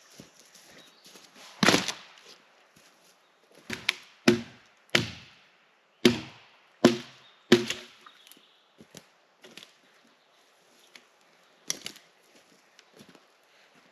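Wood being chopped with an axe: seven heavy strikes, each dying away quickly, over about six seconds, then a few lighter knocks.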